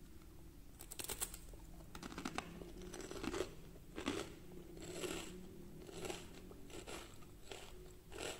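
Crispy pan-fried shredded-potato pancake crackling and crunching as fingers break and tear it apart, in a run of crisp crunches about once a second, starting about a second in.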